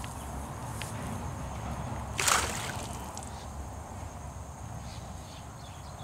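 A cast net being hauled through shallow pond water, with one short, loud splash about two seconds in, over a low steady background rumble.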